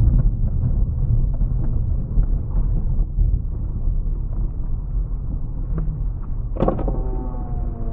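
Car driving slowly on a gravel road, heard from inside the cabin: a steady low rumble of tyres on gravel and engine, with faint small ticks of stones. Near the end a sharp knock is followed by a steady pitched hum.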